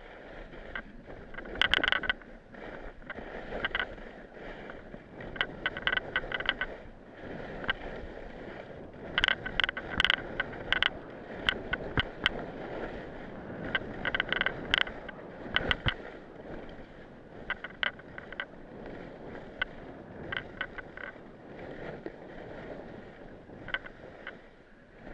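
Skis sliding and scraping over tracked, lumpy off-piste snow: a continuous rushing hiss with repeated clusters of sharp clicks and rattles as the skis clatter over the bumps.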